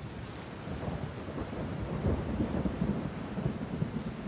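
Thunderstorm: steady rain with a low rolling rumble of thunder, fading in and swelling to its loudest partway through.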